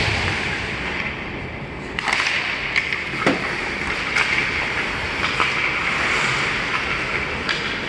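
Ice hockey play: skate blades scraping and carving the ice with a steady hiss, broken by several sharp clacks of sticks striking the puck and the puck hitting the boards, the loudest about three seconds in.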